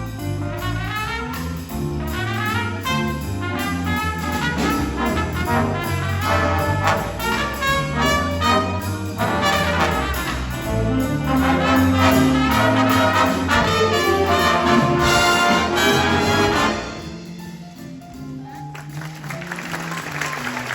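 High school jazz big band playing, with trumpets and trombones over a steady bass line and a loud full-band passage that stops sharply about three-quarters of the way through. Applause begins near the end.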